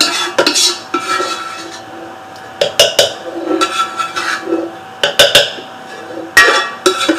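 A spoon scraping and clinking against a cooking pot in short bouts, several times, over a faint steady hum.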